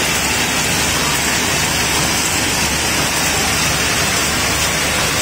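Automatic marker pen assembly machine running: a loud, steady, dense clatter of small plastic pen parts in its vibratory bowl feeder and cam-driven assembly stations, without a break or change.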